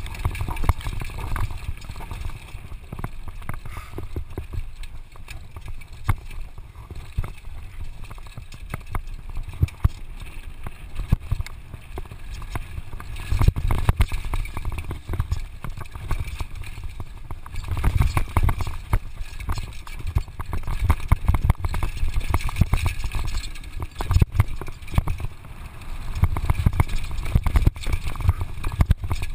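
Downhill mountain bike ridden fast down a rocky dirt trail: wind buffeting the GoPro's microphone, tyres rolling over dirt and stones, and the bike rattling and clacking over the bumps. It comes in rougher, louder surges now and then.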